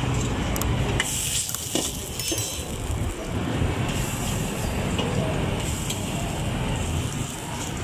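Steady low rumble of a gas wok burner with street noise around it. From about a second in, a burst of hissing lasts a second or so as oil sizzles in the hot wok.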